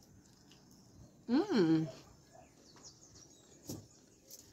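A short voiced sound, about a second in, that rises and then falls in pitch and ends on a brief low held note. A few faint clicks come later.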